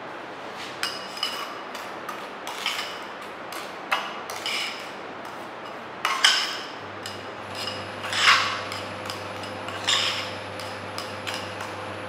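Spatula scraping and clinking against a porcelain evaporating dish while moist soil is mixed in it, each knock making the dish ring briefly, in irregular strokes. A steady hum starts about seven seconds in.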